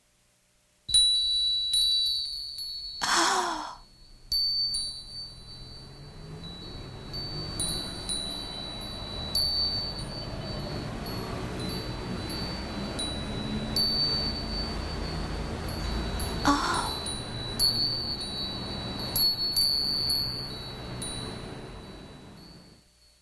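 Glass wind chime (fūrin) ringing over and over with a clear high tone, starting suddenly about a second in and fading out near the end, over soft background music. Two brief whooshes cut across it, about three seconds in and again around sixteen seconds.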